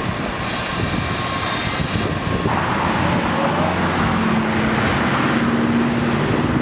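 Engine of a water truck running steadily, with a broad rushing noise. A steady low engine hum comes in about two-thirds of the way through.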